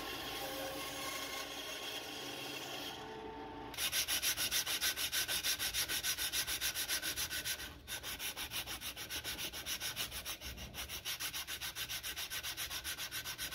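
A bandsaw runs steadily for the first few seconds, cutting the pour funnel off a cast polyurethane resin lure. Then a strip of sandpaper is pulled rapidly back and forth over the resin lure body in a rhythmic rubbing, about four to five strokes a second, with a short break a little after halfway.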